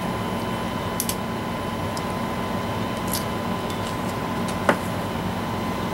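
Steady hum and hiss of room tone with a faint constant whine, broken by a few faint clicks about one, three and nearly five seconds in.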